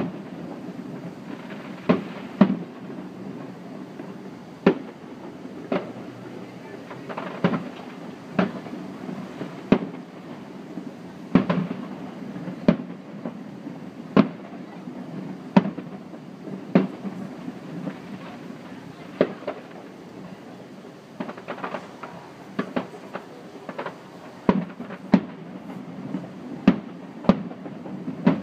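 Aerial fireworks shells bursting: about twenty sharp bangs at irregular intervals of one to two seconds, over a steady low background noise.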